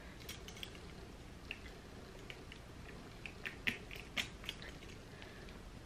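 Faint small metal clicks and taps of a keychain charm's clasp and ring being hooked onto a handbag's strap, coming thickest about three and a half to four and a half seconds in.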